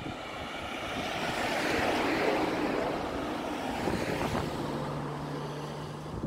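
A vehicle driving past: road and engine noise swells to a peak about two seconds in, then slowly fades. A low steady engine hum comes in near the end.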